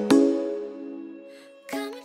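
Background music: struck notes that ring out and slowly fade, then another short chord near the end.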